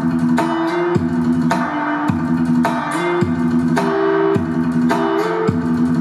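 Guitar music played through a hi-fi stereo, a Marantz KI Pearl SACD player and amplifier driving floor-standing loudspeakers. Plucked chords are struck about twice a second.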